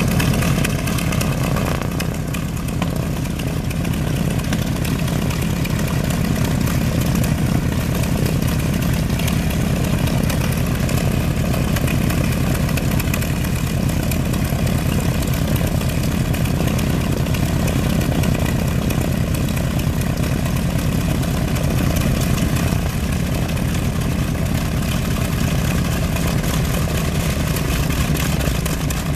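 North American B-25 Mitchell's twin Wright R-2600 radial engines running steadily at idle on the ground, a low, even drone.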